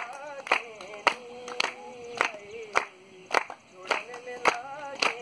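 A man singing a Kumaoni pahadi folk song with no instruments, while the audience claps in time, a little under two claps a second.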